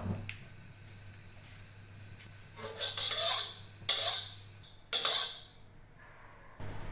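Metal wok spatula scraping across the surface of an empty black wok three times, each a rasping scrape of about half a second, while the wok is dried on the fire before oil goes in.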